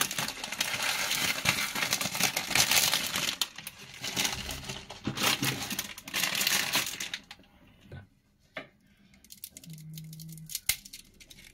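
Dry crinkling and crackling from dry instant noodle blocks being handled over a pot of water: dense for about the first seven seconds, then a few scattered sharp cracks.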